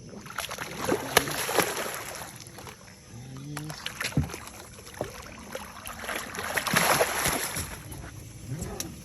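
Water splashing as a hooked catfish thrashes at the surface beside the boat, in two rough bursts a few seconds apart.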